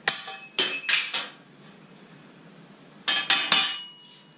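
Sharp metallic clinks of a hammer tapping a thin steel plate, in two quick clusters of strikes. The last strike leaves the plate ringing on a steady tone for about half a second.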